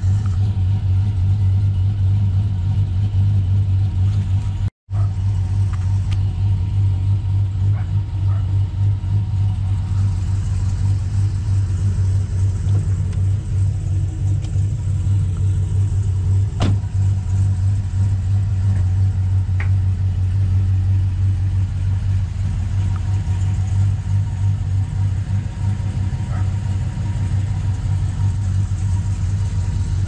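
Chevrolet Silverado pickup's engine idling with a steady low rumble, broken once by a brief cutout about five seconds in.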